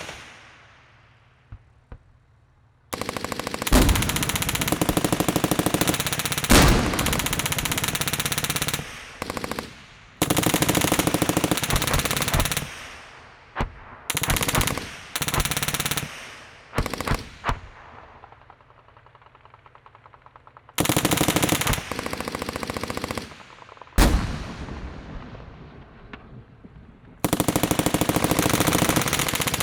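Battlefield gunfire: bursts of rapid automatic fire several seconds long, broken by short pauses, each trailing off in an echo. About three-quarters of the way through comes one louder single shot with a long echoing decay.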